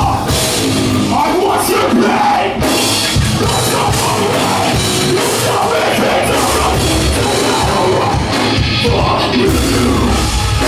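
Live heavy rock band playing loud: electric guitars and a drum kit, with a singer's vocals over them.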